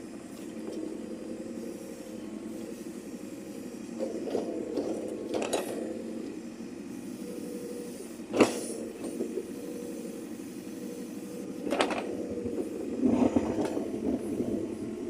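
Backhoe loader's diesel engine running steadily with a droning hum, broken by three sharp metallic clanks, the loudest about halfway through, and a rougher burst of noise near the end.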